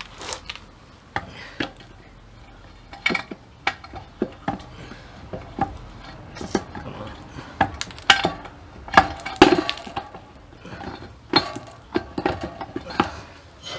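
Irregular metallic clinks and knocks from hand tools and engine parts being handled. The sharp strikes come one after another, with a cluster of the loudest about two-thirds of the way through.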